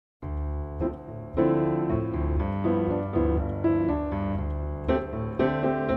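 Piano music: an intro theme of chords over a held bass line, beginning a moment in.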